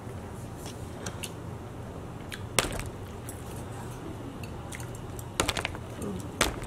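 Metal chopsticks clicking against each other and the dish while picking at flaky fish: a few sharp clicks, the loudest about two and a half seconds in and a quick cluster near the end.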